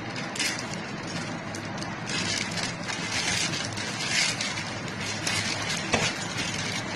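Packaging crinkling and rustling as a parcel is opened by hand, with one sharp click about six seconds in.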